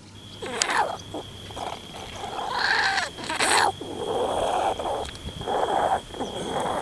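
An animal calling in a series of rough, noisy calls of uneven length, over a faint steady high-pitched tone.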